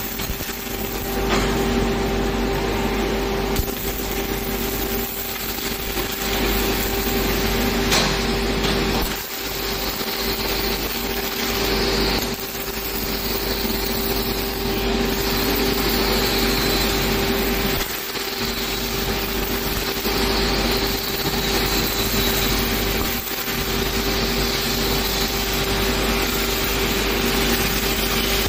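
Robotic MIG welding arcs crackling steadily as two torches weld a steel frame, over a steady hum, breaking off briefly a few times between welds.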